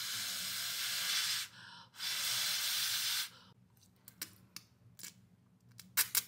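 Instant noodles slurped in through the lips in two long hissing draws, followed by short wet smacks and clicks of chewing.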